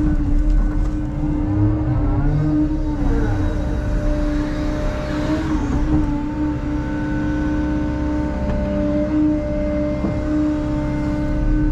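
Bobcat E165 compact excavator's diesel engine and hydraulics working under load, heard from inside the cab: a steady engine hum with a whine whose pitch bends briefly twice as the arm and bucket move.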